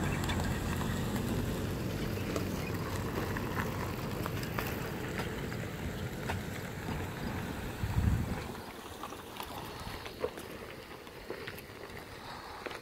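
Cars driving slowly over a railroad grade crossing, a low engine and tyre rumble. There is a loud low thump about eight seconds in, after which the sound quietens.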